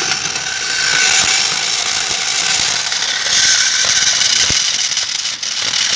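Home-made plastic-cutting machine running: a small washing-machine motor drives a used saw blade through a belt and pulleys, the blade grinding steadily into a computer keyboard's plastic with many small clicks and rattles.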